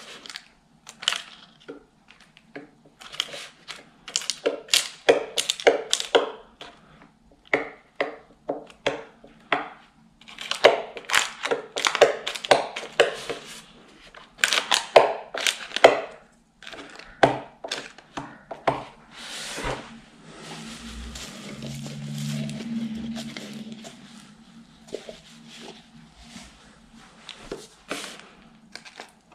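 Irregular clicks and knocks of small wooden strips against a chipboard shelf panel as they are pressed and glued into its cut edge, coming in dense clusters. About two-thirds through there is a few seconds of steadier noise with a low hum.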